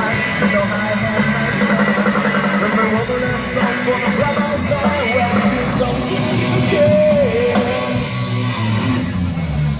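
Rock band playing live during a sound check, with a singing voice, guitar and cymbals, loud and steady throughout.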